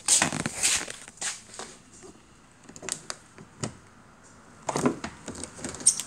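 A car door being opened by its handle: scattered clicks and rustles, then a fuller clunk about five seconds in as the latch releases, and a sharp click near the end.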